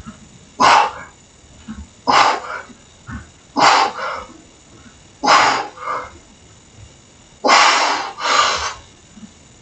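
Sharp, forceful exhalations from a man straining through bar dips, one short breath roughly every second and a half with each rep, two close together near the end as the set gets hard.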